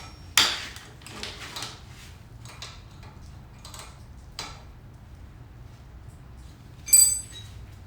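Metal tools and parts handled on a workbench: a clatter about half a second in, a few small clicks and knocks, then a bright, ringing metal clink near the end.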